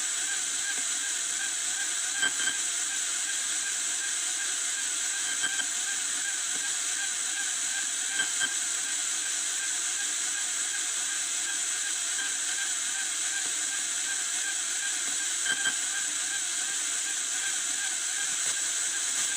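Steady electronic hiss from a circuit under test, with a wavering warble running underneath and short chirps every two to three seconds.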